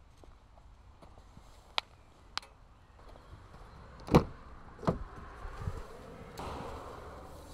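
Rear door of a Cupra Leon hatchback being opened by hand: a loud latch clunk about four seconds in, a second knock just after, then a soft rustle as the door swings open. Two sharp faint clicks come earlier.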